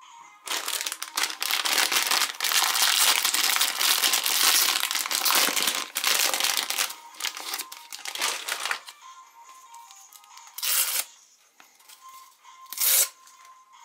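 A foil-lined plastic snack wrapper loudly crinkling and tearing as it is pulled open for several seconds, then short crinkles of a small paper wrapper being unfolded near the end, over faint background music.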